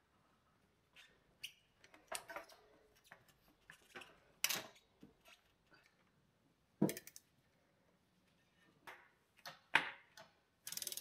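Scattered clicks and knocks of hands working on a bicycle's rear derailleur and drivetrain in a repair stand, with a sharp knock about seven seconds in. Near the end, a quick run of ticks as the rear wheel is turned by hand.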